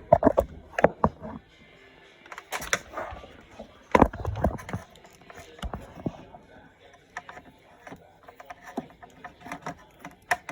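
Irregular clicks and knocks from handling a dryer's wiring connectors and multimeter test probes, with two loud clusters of knocks just after the start and about four seconds in.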